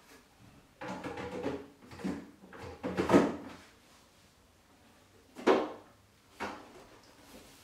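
Handling noise: a run of scrapes and knocks over the first few seconds, then two sharper knocks at about five and a half and six and a half seconds in.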